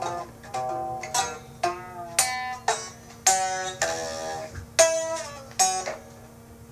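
A plucked string instrument playing a slow line of single notes, each picked sharply and left to ring and fade, some bending in pitch, over a faint steady hum. The playing stops about six seconds in.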